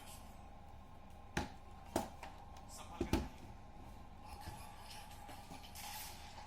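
A few sharp clicks and knocks from a laptop's parts being handled while it is taken apart: one about a second and a half in, one at two seconds, and a quick pair just after three seconds. They sound over a faint steady hum.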